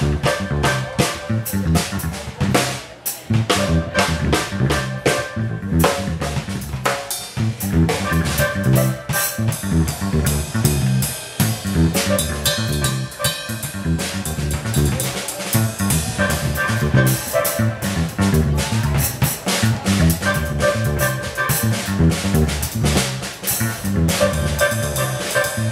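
Instrumental trio playing live: a drum kit with busy snare, rimshot and cymbal hits, an electric bass, and held electric organ chords.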